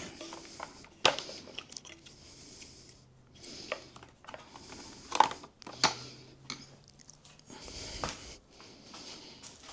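A motorcycle headlight assembly being worked loose and handled: scattered clicks, knocks and rustling, with a few sharper clicks about a second in and around five to six seconds in.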